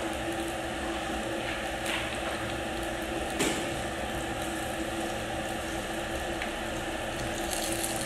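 Sausages sizzling as they fry in oil in a small frying pan, a steady hiss with a low hum under it. Chopsticks knock against the pan about three and a half seconds in as the sausages are turned.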